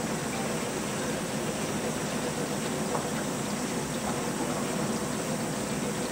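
Steady workshop background hum and hiss, with a faint click about three seconds in.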